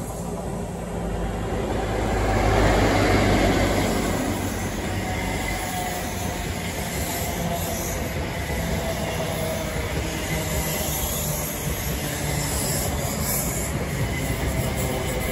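Diesel passenger train running slowly past the platform: a steady rumble of wheels on rail, with a thin squeal from the wheels.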